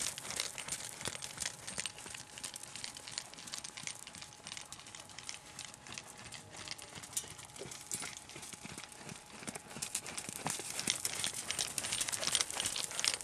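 Hoofbeats of a horse trotting on sandy arena footing, a steady run of soft thuds that is louder near the start and again toward the end as the horse passes close, and fainter in the middle as it goes round the far side.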